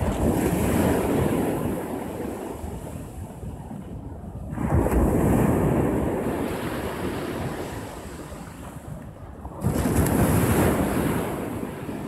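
Small sea waves breaking on a sandy beach and washing up the shore, three times about five seconds apart. Each wave comes in suddenly and then fades.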